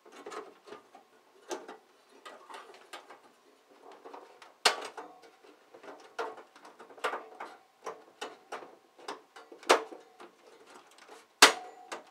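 The steel wire guard grate of a Mr. Heater Buddy portable propane heater is worked back into its mounting holes, making irregular metal clicks and rattles against the heater's plastic housing. A few louder clacks come about halfway and near the end.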